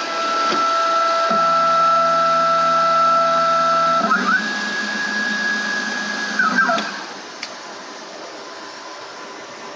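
ProLIGHT 1000 benchtop CNC mill running, its end mill cutting brass: a steady whine, with a lower drone joining about a second in. The pitch steps up about four seconds in. Near seven seconds the whine glides down and falls away as the machine stops, leaving a steady quieter hum.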